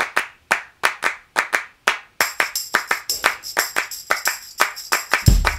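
Intro music built on a steady rhythm of handclaps. A high shimmering layer joins about two seconds in, and a heavy bass drum comes in near the end.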